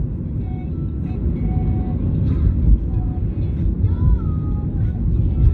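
Road and engine rumble inside a moving taxi's cabin, heavy and continuous, with faint music playing over it.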